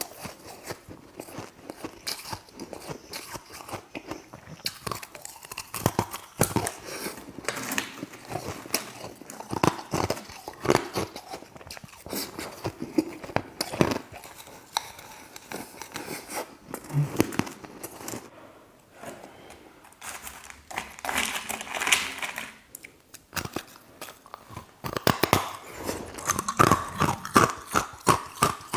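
A person biting and chewing ice close to the microphone: dense, irregular crunching and crackling, louder and busier in the last few seconds.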